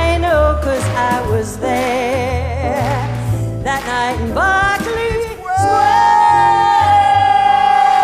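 A woman's voice warbling wordlessly in imitation of birdsong, with fast pitch wavers and upward swoops, then a long held high note from about two-thirds of the way in, over backing music with a bass line.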